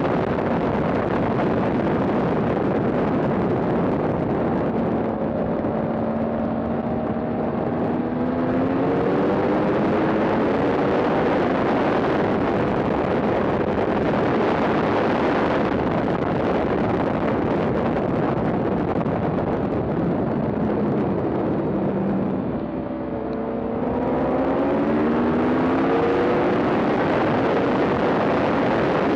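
Motorcycle at track speed: heavy wind rush on the microphone covers most of it, with the Yamaha R1's inline-four engine note climbing under hard acceleration, once about a quarter of the way in and again near the end.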